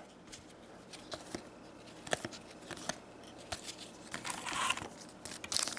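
Upper Deck hockey trading cards being handled: scattered faint clicks and slides of cardstock as cards are flipped and tossed aside, with a brief rustle a little past four seconds in as a hand reaches into the hobby box for the next foil pack.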